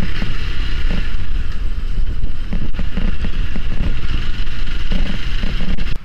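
Hero XPulse 200 single-cylinder motorcycle ridden over a bumpy brick-paved lane, heard through the rider's lavalier mic: a steady engine and wind rumble with irregular jolts from the bricks.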